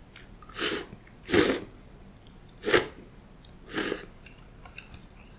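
A person slurping thick udon noodles: four short slurps in the first four seconds, the second and third the loudest.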